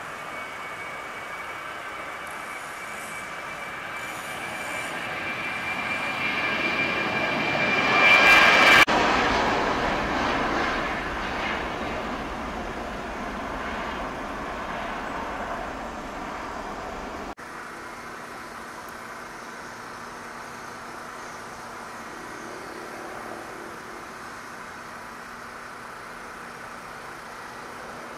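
Twin-engine jet airliner taking off: engine noise with a steady high fan whine grows to its loudest about eight seconds in as the jet passes, then fades as it climbs away. About seventeen seconds in it cuts off suddenly, leaving a quieter steady hum of airport background.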